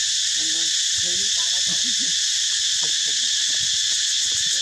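Steady, high-pitched chorus of insects shrilling without a break, with faint short pitched calls coming and going beneath it.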